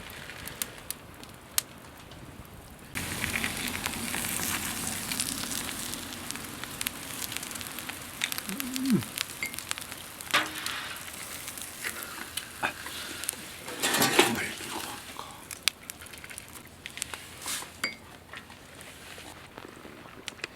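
Food sizzling in a hot pan over a wood campfire. The sizzle starts abruptly about three seconds in and eases off gradually, with scattered clicks and knocks of utensils against the pan.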